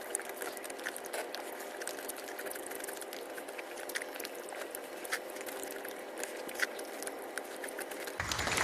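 Scattered small wet clicks and ticks of eating noodles, over a steady low hum. A louder, noisy sound starts just before the end.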